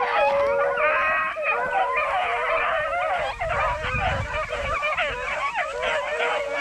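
A pack of beagles baying in chorus, many overlapping voices calling without a break: the hounds are running a rabbit.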